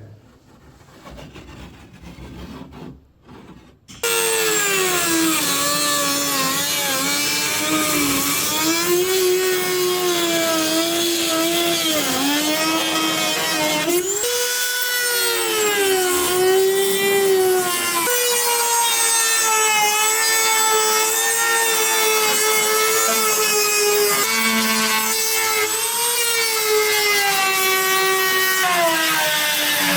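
A handheld power tool starts abruptly about four seconds in and runs loud and continuously while cutting. Its whine wavers slowly up and down in pitch as the load changes. Before it starts there are only faint handling sounds.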